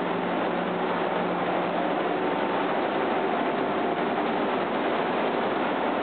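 Industrial tunnel microwave sterilization machine running: a steady, even mechanical noise with a faint constant hum.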